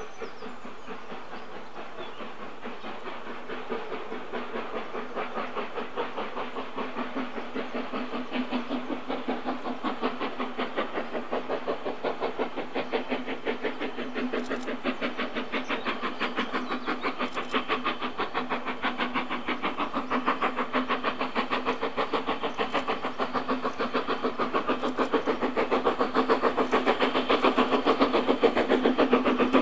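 Steam locomotive working hard, its exhaust beats coming in a quick, steady rhythm and growing steadily louder as it approaches.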